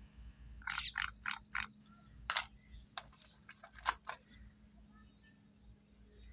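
Small hard plastic toy pieces clicking and tapping as they are handled: a quick run of clicks about a second in, a few single taps after, then only faint ticks.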